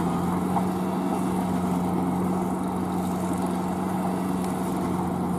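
Kubota L4508 tractor's four-cylinder V2203-DI diesel running steadily under load as it pulls a rotary tiller through a flooded paddy field.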